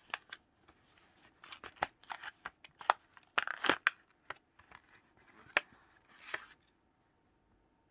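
Pokémon card mystery box packaging being torn open and handled: irregular rustling and crinkling with sharp clicks, loudest near the middle, stopping about six and a half seconds in.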